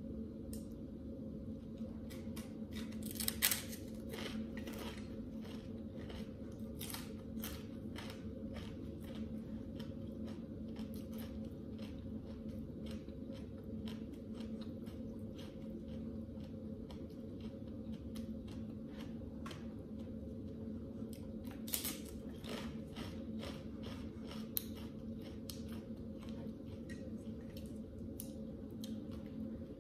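Crunchy toasted sesame rice cracker (bánh tráng mè) being bitten and chewed close to the mic: a long run of crackly crunches, with louder bursts about three and a half seconds in and again around twenty-two seconds. A steady low hum runs underneath.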